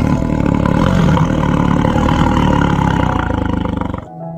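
Leopard growling: one long, rough, low growl that pulses faster toward the end and stops abruptly about four seconds in.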